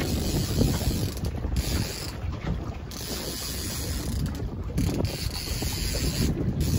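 Fishing reel being cranked steadily under the load of a hooked fish on a bent boat rod, a fine rapid mechanical whirr and click, with wind rumbling on the microphone.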